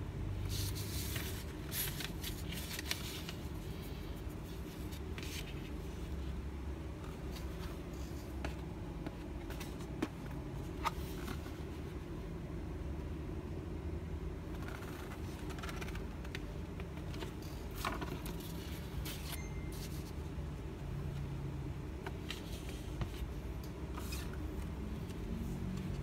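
Hands handling a laptop and its paper wrapping: intermittent rustling and scraping with a few light clicks, over a steady low rumble.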